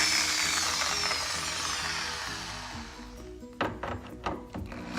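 Power screwdriver driving a screw into a speaker box, its whine slowing and falling in pitch, then a few sharp clicks of handling. Background music plays underneath.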